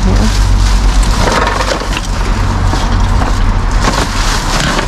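Plastic rubbish bags rustling and crinkling as hands rummage through them, with quick irregular crackles throughout.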